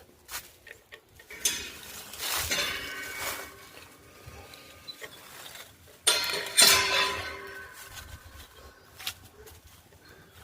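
Two spells of clinking, with ringing tones that linger and fade: one about a second and a half in, one about six seconds in.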